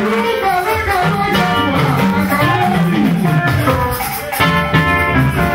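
Live Yoruba gospel band music, with a singer's voice over shakers and a band.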